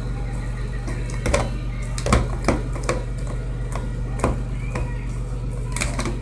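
A handful of sharp clicks and knocks at irregular intervals over a steady low hum.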